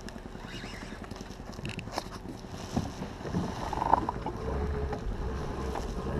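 Handling knocks and rustle from a fishing rod gripped close to the microphone while a hooked fish is fought from a kayak, over a steady wash of water and wind noise. One sharper knock comes about four seconds in, and a low rumble sets in shortly after.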